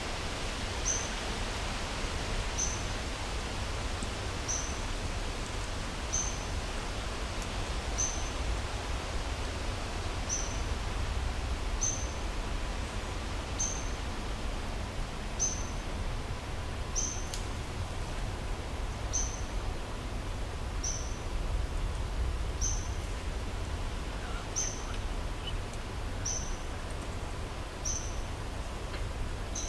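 A short, high animal chirp repeated evenly about every two seconds, over a steady background hiss and low rumble.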